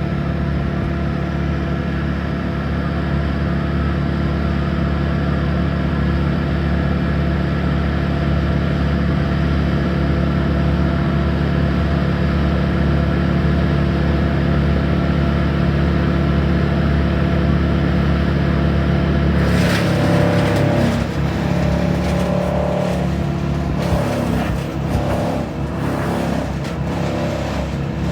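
Engine of a tree-service wood-cutting machine running steadily at a high, even speed. About twenty seconds in, harsh, irregular crunching starts over the engine and comes and goes in surges: wood being ground or chipped.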